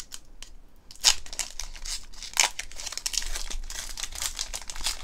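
Foil Pokémon booster pack wrapper being torn open by hand, crinkling and crackling throughout, with the sharpest rips about a second in and again a little after two seconds.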